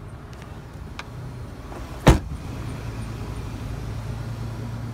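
Door of a 2004 Chevrolet Avalanche pickup being shut: a click about a second in, then one loud slam about two seconds in.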